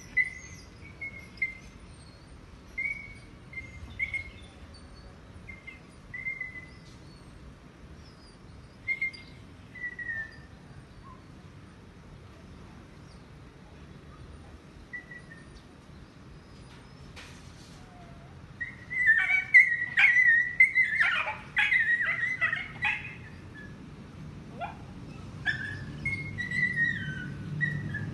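Short high-pitched animal calls, repeated every second or two, some falling slightly in pitch. About two-thirds of the way through they become a loud, dense flurry lasting a few seconds, then continue more sparsely.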